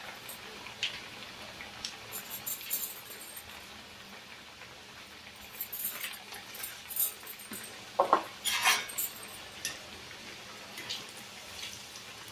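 Scattered light clinks and crackles of a metal utensil against a pan of hot oil with coconut fritters frying in it; the clinks are a little louder about eight seconds in.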